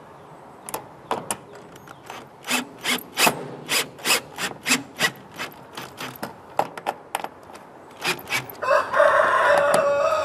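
Irregular sharp clicks and taps of metal hardware being handled, then, a little before the end, a Ryobi cordless drill starts and runs steadily as it drives a screw into a metal hasp latch.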